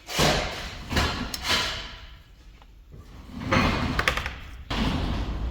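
Knocks and clattering of hand tools and small parts being handled, coming in irregular bursts with several sharp knocks.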